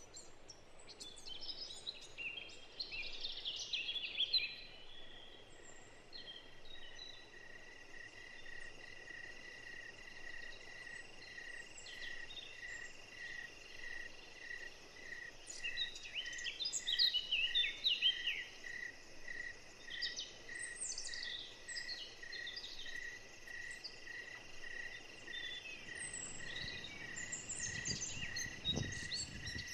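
Outdoor countryside ambience: songbirds chirping on and off over a steady, evenly pulsing insect trill. The birds are loudest around four and eighteen seconds in, and a short low rumble comes near the end.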